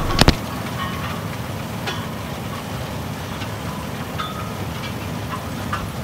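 Amity sugar beet harvester running: a steady mechanical rumble with short metallic squeaks and clanks about once a second. Two sharp knocks come right at the start.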